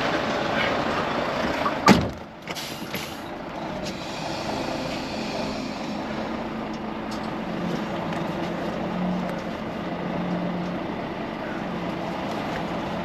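Heavy truck running steadily, with one sharp loud bang about two seconds in, a few lighter knocks just after, and the overall sound somewhat quieter from then on.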